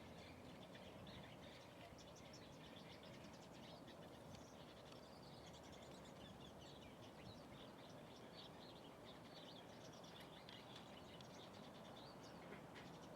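Many small birds chirping, a dense run of short, rapid calls, faint over a steady low background rumble.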